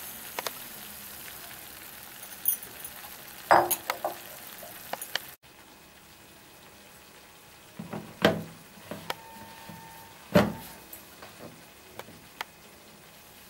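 Scattered knocks and clinks of a steel mixer-grinder jar being handled: roasted sesame tipped in from a glass bowl, then the jar set on the motor base, with a heavy low thump about ten seconds in, and its lid fitted. A faint steady sizzle of khoa frying in ghee lies under the first five seconds, then drops away; the grinder motor is not running.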